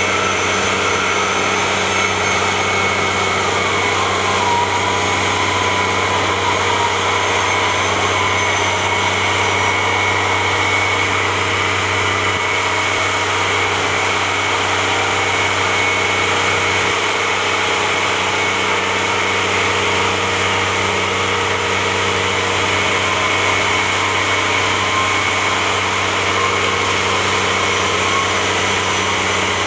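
Engine of a tracked carrier running steadily as it moves over snow: an even low drone with a thin high whine on top.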